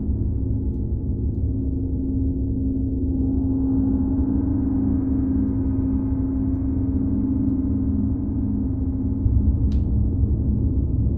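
Tibetan gongs ringing in a sustained, layered drone of deep overlapping tones. The wash brightens about three seconds in and swells in the low end again near the end, with one brief high click just before the end.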